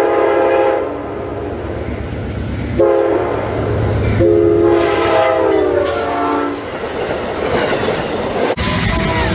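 Locomotive air horn sounding a chord of several tones in blasts: one ending about a second in, a short one near three seconds, and a long one whose pitch sags slightly near its end. The rumble and clickety-clack of a train's wheels run under it. Near the end the sound cuts abruptly to another horn chord.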